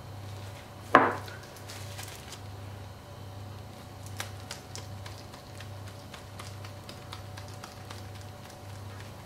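A single sharp knock about a second in, as of a container set down on a countertop, then irregular small crackling clicks of a hand-twisted spice grinder grinding seasoning. A low steady hum sits under it all.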